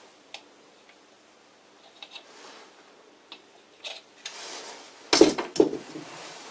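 Light clicks from a thumb-pump oil can squirting oil onto a lathe's top slide, then two loud metal-on-metal clunks about five seconds in, half a second apart.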